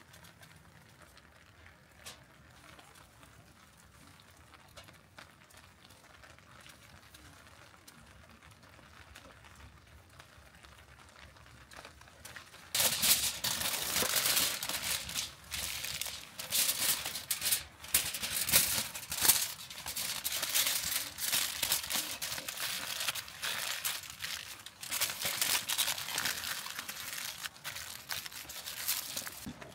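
Aluminium foil crinkling and crackling in irregular bursts as hands fold it over a pizza and press it into a tight parcel. It starts suddenly about halfway through.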